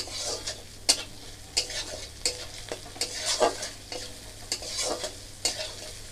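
Masala paste sizzling in oil in a metal kadai while a metal spatula stirs it, scraping and knocking against the pan about once a second. The spices are being fried down on low-to-medium heat until the oil separates from them.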